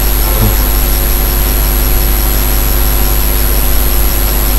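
Steady loud hiss with a low electrical hum and a faint high whine: the recording's own background noise.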